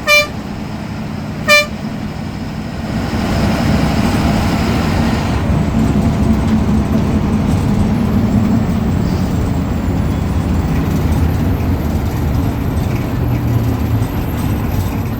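Ashok Leyland bus diesel engine running with a steady low rumble that grows louder about three seconds in. Two short horn toots sound in the first second and a half.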